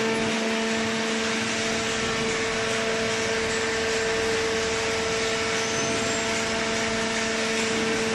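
Cardboard baler's hydraulic power unit running, a steady hum with a constant tone over a broad mechanical noise.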